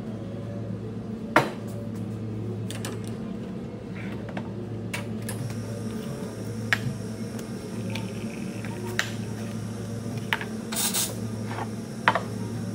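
Cafe work sounds: a few sharp clinks and clacks of dishes and utensils, the loudest about a second and a half in, over a steady low machine hum, with a brief hiss near the eleventh second.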